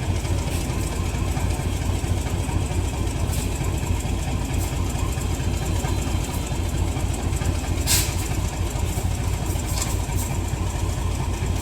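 Diesel locomotive engine idling with a steady low rumble, and a sharp click about eight seconds in.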